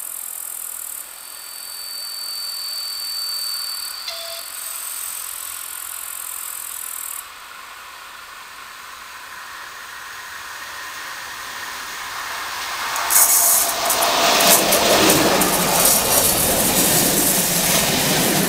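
A train hauled by a ČD class 854 diesel-hydraulic locomotive approaches and passes close by. It grows steadily louder from about halfway through, then runs loudest over the last five seconds, with the rattle and clatter of wheels over the rail joints as the vehicles go past.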